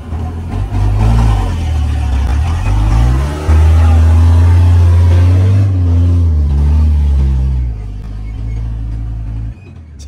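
Heavy vehicle's diesel engine revving hard under load, its pitch climbing and falling several times; it is loudest in the middle and eases back down about two seconds before the end.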